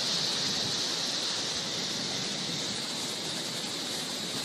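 Strong storm wind blowing, a steady rushing noise ahead of a tornado.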